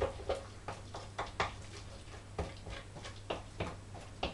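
A utensil stirring a thick batter in a stainless steel mixing bowl, knocking and scraping against the metal in irregular light clicks and ticks.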